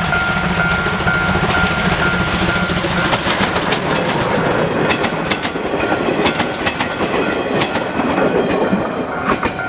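Steam-hauled passenger train passing close by under full power: a loud, steady rush of running noise, with rapid clacking of wheels over the rail joints from about halfway through.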